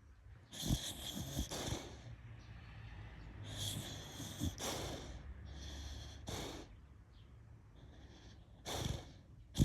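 A sleeping beagle snoring, a run of noisy breaths every second or two, with small birds chirping in the background.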